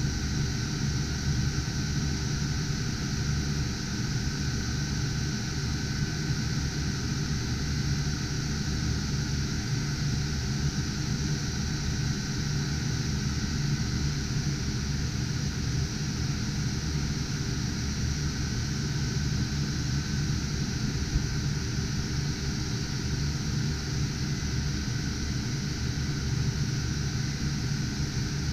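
Steady whirring drone of computer cooling fans on GPU cryptocurrency-mining rigs, with a low hum under it and no changes.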